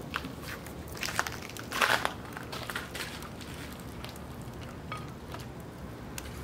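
Crunching and clinking of fuel being handled through the grate onto the burning lump charcoal in a Weber kettle grill, loudest about two seconds in. Fainter scattered ticks and crackles follow.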